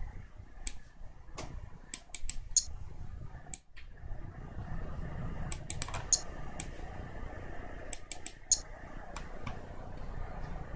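Irregular clicking of a computer mouse and keyboard, a dozen or more sharp clicks, some in quick pairs and runs, over a low steady hum.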